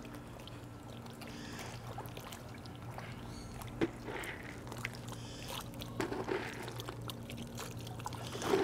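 Water splashing and sloshing as young alligators move through a shallow pool, with a few short splashes about four and six seconds in and near the end, over a steady low hum.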